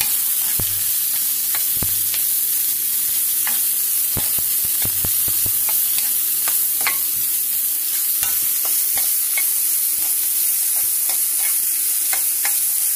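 Sliced onions and spices sizzling in hot oil in a non-stick wok, stirred with a spatula that clicks and scrapes against the pan many times. This is the tempering being fried.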